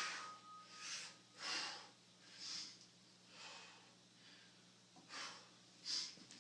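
A man breathing hard in heavy, hissing breaths, about six of them spaced a second or so apart, recovering from the exertion of a heavy lift.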